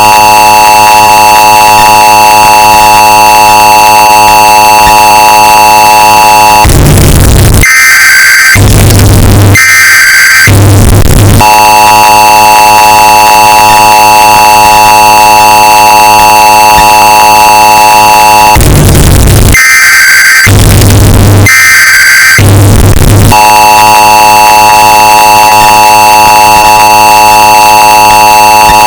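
Emergency Alert System alert, bass-boosted and clipped into harsh distortion. The two-tone attention signal sounds as a steady, grating buzz. About seven seconds in, and again about two-thirds of the way through, it is broken by three short screeching bursts of the digital data header, then resumes.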